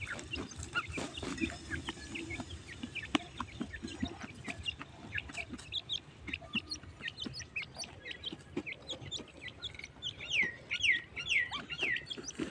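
Teetar partridges calling: a steady scatter of short chirps and clucks, then a run of louder, downward-sliding squeaky calls near the end.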